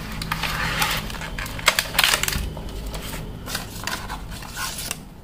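Cardboard box and plastic packaging tray rustling and crinkling as a power bank's retail box is opened and the tray slid out, with a few sharper clicks about two seconds in.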